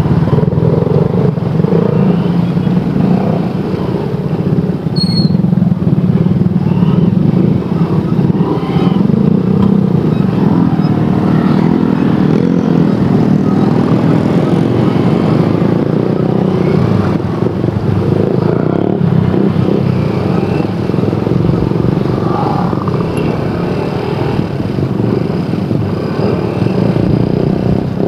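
Honda TMX125 Alpha's single-cylinder four-stroke engine running steadily at low speed, a low, even drone, with other motorcycle engines running close around it.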